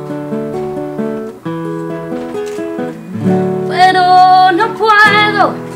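Acoustic guitar playing picked chords. A woman's voice comes in about halfway through, singing a line over it, and the last held note slides down near the end.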